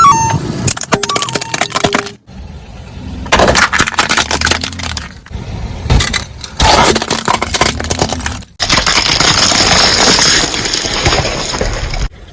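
Objects being crushed under a car's tyres: crackling and crunching in several separate bursts, ending in a longer rough, hissing crunch that stops abruptly near the end.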